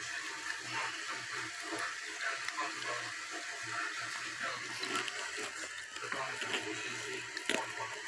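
Pot of gum bubbling at a boil over a wood fire: a steady wet hiss full of small irregular pops.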